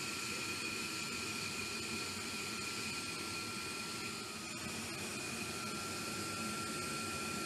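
Steady hum and hiss of equipment inside a B-1 Lancer bomber's crew compartment, with a faint steady high whine.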